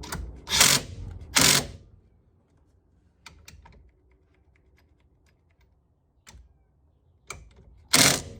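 Steering-wheel nut being tightened onto the steering shaft with a hand tool: three short, loud, harsh bursts (two close together at the start and one near the end), with a few light metallic clicks between them.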